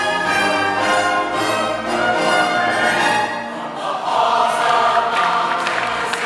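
Large choir singing with orchestral accompaniment, ending on a long held chord about four seconds in. Scattered clapping starts near the end as the applause begins.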